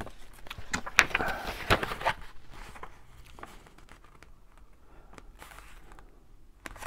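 Tracing paper being handled and positioned: rustling with a few sharp crackles in the first two seconds, then quieter light handling.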